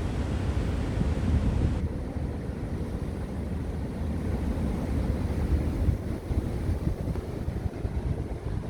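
Wind buffeting the microphone over sea waves washing on the shore, a dense uneven rumble. The higher hiss of the surf drops away abruptly about two seconds in.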